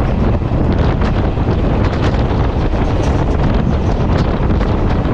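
Wind buffeting the microphone on a moving passenger train, over the steady low rumble of the train running along the track.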